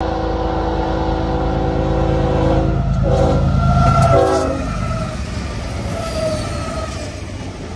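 Norfolk Southern diesel locomotive's horn sounding a long blast, a brief break, then a second blast whose pitch drops as the locomotive passes about four seconds in, over the engines' rumble. After that, the locomotives and intermodal cars rolling by on the rails.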